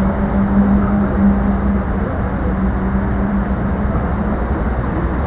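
Low rumble of a large vehicle passing, with a steady drone that fades out about four and a half seconds in.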